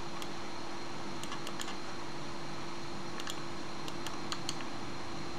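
Computer mouse clicking, a few sharp clicks in small clusters, over a steady background hiss and hum.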